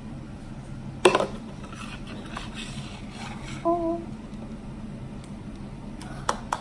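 A clear plastic cup knocked down on a stone countertop about a second in, followed by light rubbing and handling of plastic cups and slime, with two small taps near the end.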